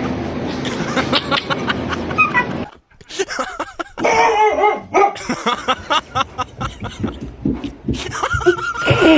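A dog vocalizing, broken by a brief silence about three seconds in.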